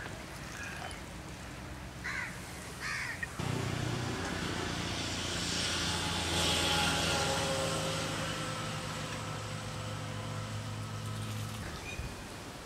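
A passing motor vehicle's engine runs steadily, starting about three seconds in, growing louder toward the middle and fading before the end.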